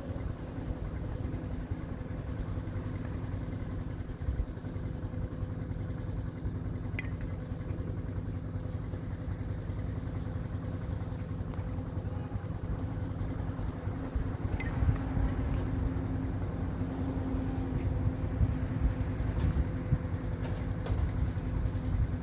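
Strong wind buffeting the microphone, a fluctuating low rumble over a steady low hum, with a few faint clicks.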